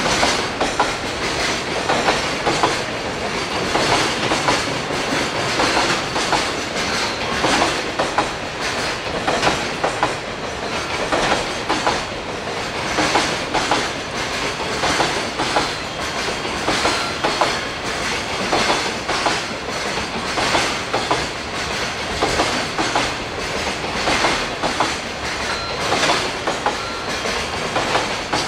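Container freight train wagons rolling steadily past: a continuous rumble of steel wheels on rail with a dense run of wheel knocks.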